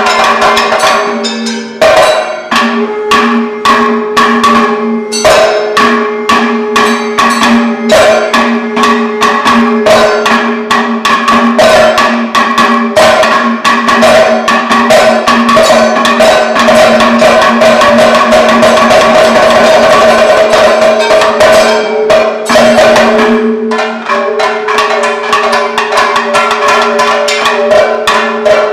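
Kathakali melappadam percussion ensemble playing: fast, dense maddalam drum strokes mixed with sharp metallic gong and cymbal strikes, over a steady sustained drone.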